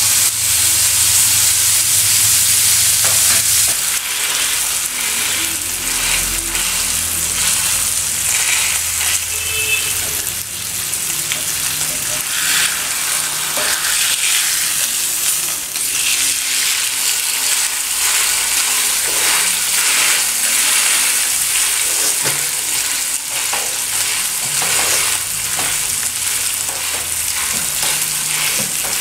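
A slice of beef tenderloin sizzling steadily in melted butter on a hot ridged grill pan, the hiss strongest in the first few seconds after the meat goes in.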